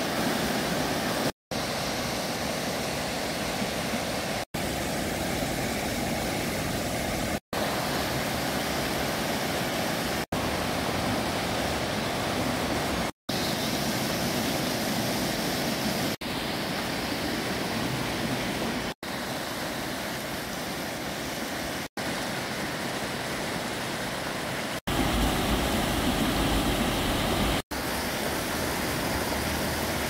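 Mountain stream rushing hard over boulders and small cascades. It runs faster than usual, perhaps still swollen from heavy rain three days before. The rush is broken by brief silent dropouts every few seconds, and one stretch near the end is louder and deeper.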